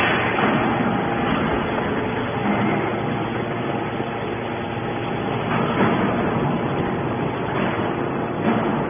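Hydraulic scrap-metal baler running: a steady mechanical hum and noise from its pump and press, with a couple of brief knocks from the metal scrap.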